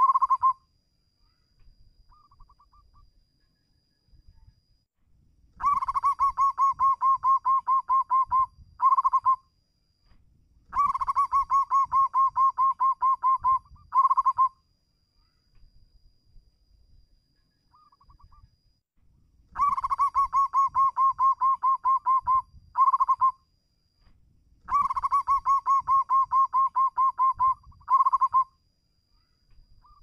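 Zebra dove (perkutut) singing its staccato cooing song, sung to call a rival. Four phrases, each a fast, even run of short coos lasting about three seconds, then a short separate burst of notes, with a few faint single notes in the pauses.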